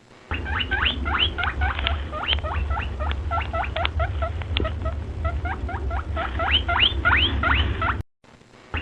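Rabbit sound as played for the word 'rabbit': a rapid run of short, high, rising squeaks over a steady low hum, breaking off briefly near the end and starting again.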